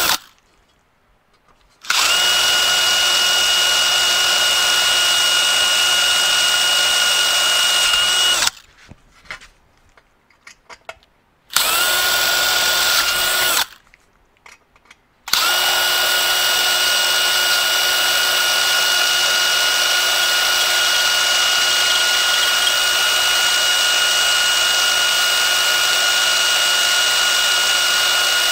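Cordless drill boring out the rivets on a 1968 Ford Torino shifter plate. The drill runs at a steady, even pitch in three stretches: from a couple of seconds in to about a third of the way, briefly near the middle, and without a break from about halfway to the end, with short pauses and a few small clicks in between.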